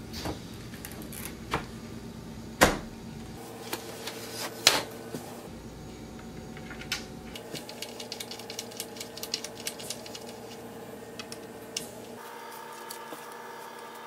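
Wooden frame parts of a pinewood changing table knocking together as the shelves are fitted into the end frame, the loudest a sharp knock about two and a half seconds in. Then a run of quick light clicks as bolts are turned into the frame by hand and with a hex key.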